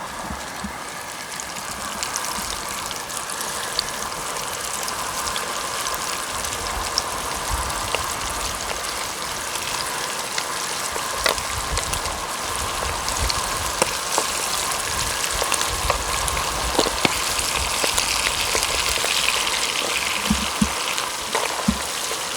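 Chicken pieces frying in hot oil in a pot: a steady sizzling hiss with scattered pops and crackles, slowly getting louder.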